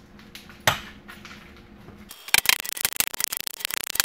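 A single metal knock about half a second in, then, from about two seconds in, a quick run of hammer taps on a metal disc being driven into the open end of a stainless steel exhaust pipe to cap it.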